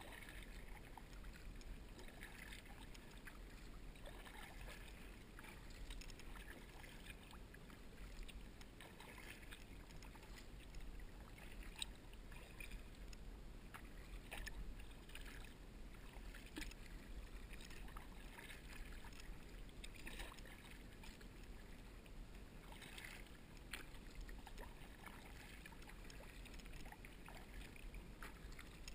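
Faint sound of a kayak paddle dipping into calm water, with light splashes and drips from the blades every few seconds over a low, steady rumble.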